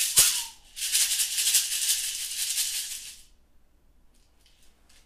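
Hand rattle shaken: one sharp shake just after the start, then fast continuous rattling for about two and a half seconds that stops abruptly about three seconds in. Faint small clicks follow near the end.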